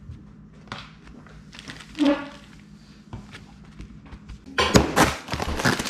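Soft taps and thunks of hands handling food on a tabletop, then, about four and a half seconds in, a second or so of dense rustling and clicking.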